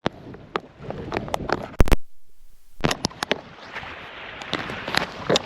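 Handling noise on a clip-on microphone that is cutting out: rubbing and rustling with scattered sharp clicks and knocks, two loud knocks just before the sound drops out for under a second, then more clicks and rustle.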